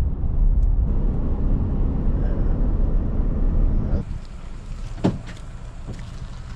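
Vehicle on the road: a loud, steady low rumble of road and wind noise. It cuts off abruptly about four seconds in to a much quieter background, with a single sharp click about a second later.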